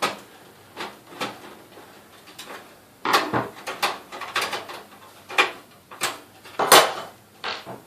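Irregular metal clicks, knocks and scrapes as a graphics card's metal bracket is forced and bent to fit into a desktop PC case's rear expansion slot. The knocks come thicker and louder about halfway through, with the loudest near the end.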